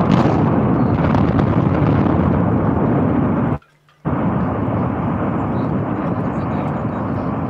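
Demolition explosions at Fawley Power Station's generator hall, heard from about a kilometre and a half away: a sharp blast just at the start, then a long, deep, thunder-like rumble as the charges and collapse carry on. The sound drops out for half a second a little before the middle.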